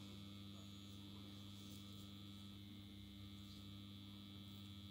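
Near silence with a steady electrical mains hum, no other sound standing out.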